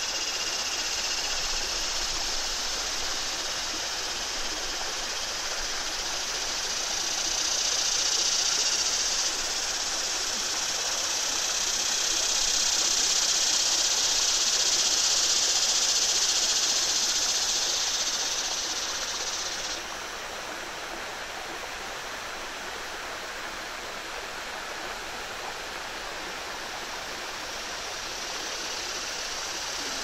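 Stream water spilling and splashing steadily over a low rock ledge, a small cascade only a few feet high. Over it a high, buzzing chorus of cicadas swells in the middle and drops off suddenly about two-thirds of the way through.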